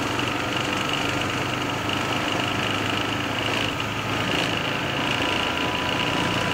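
Airbus A320 flight-deck noise during the takeoff roll: the engines at takeoff thrust together with the rumble of the rolling airliner make a steady, even roar. A thin steady tone comes in about five seconds in.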